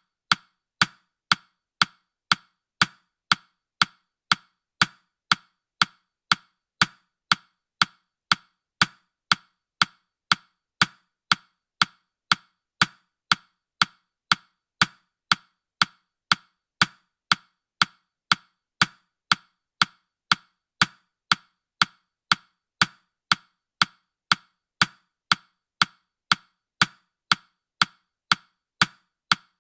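Countdown timer's ticking sound effect: short, sharp woody clicks, about two a second, in a steady even rhythm.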